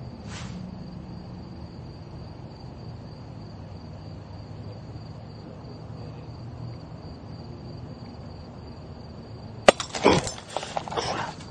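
Faint steady chirring of insects, then about ten seconds in a sharp crack and a second and a half of crackling and tinkling: the light bulb's glass shattering.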